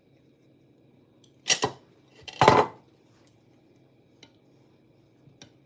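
Kitchen dishes and utensils clattering as food is plated: two loud clatters about a second apart, then a few light clicks.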